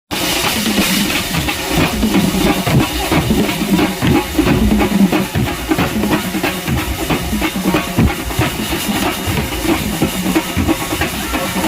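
Drums played by hand in a fast, dense rhythm of closely spaced strokes at a steady loud level.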